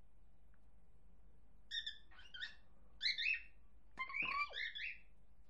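Cockatiel whistling a string of short chirps and warbling notes, starting about a second and a half in and loudest around three seconds.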